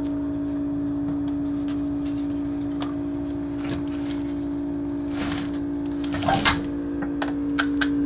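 Old GE refrigerator's compressor running with a loud, steady hum that does not shut off, which the owner puts down to a stopped condenser fan leaving the compressor to overheat. Short knocks and rustles of handling at the back panel sound over the hum, the loudest about six and a half seconds in.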